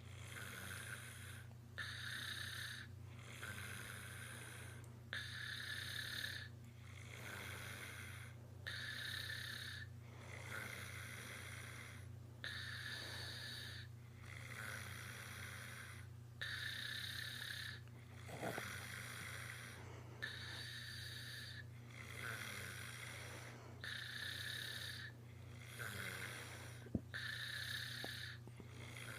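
Loud snoring from a sleeper: a rasping snore on each breath, coming back every few seconds in a regular rhythm.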